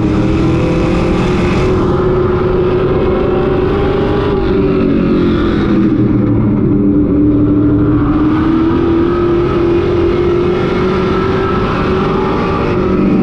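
Race truck's engine heard from inside the cab, running hard under racing load. Its pitch climbs, falls away about four to six seconds in as the driver lifts for a turn, climbs again, and dips briefly near the end.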